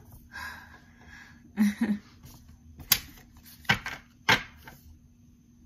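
A deck of oracle cards being handled and shuffled by hand, with several sharp clicks and taps of the cards in the middle.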